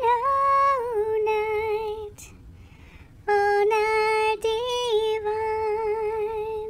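Small dog, a Yorkshire terrier, howling along in long, wavering, sung-like notes. It breaks off about two seconds in and resumes a second later with several more held notes.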